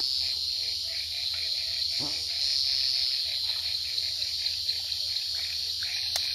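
Night chorus of crickets and frogs at a lagoon edge: a steady high insect trill with a quick, even pulsing beneath it, unbroken throughout.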